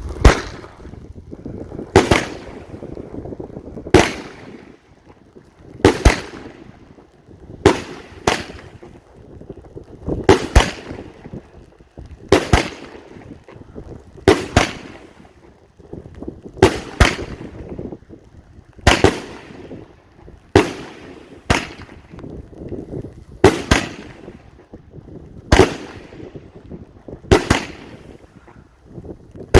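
A 25-shot, 2-inch (50 mm) firework cake, Big Bang Brocade, firing shot after shot. It goes roughly once every two seconds, sometimes two bangs close together, and each sharp bang trails off.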